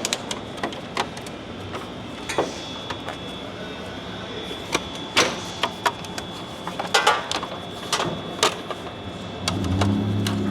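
Irregular clicks and knocks of plastic headlight assemblies being handled and threaded through their slots on the truck's front end. Near the end a steady low hum sets in.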